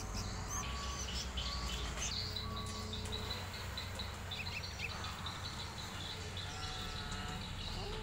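Young bulbuls chirping in short, high calls, repeated again and again, over a low steady rumble in the background.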